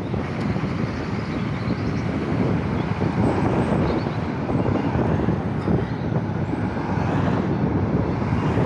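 Wind noise on the microphone of a cap-mounted Insta360 Go2 camera on a moving bicycle: a steady low rush. An oncoming car goes by near the end.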